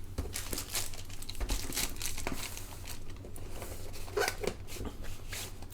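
The boxed keyboard's packaging being handled: crinkling and rustling with scattered light taps and knocks.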